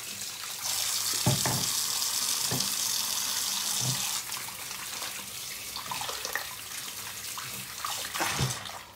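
Kitchen tap running into the sink while hands are washed under it. The flow is strongest for the first few seconds, then runs more quietly, with a few soft knocks.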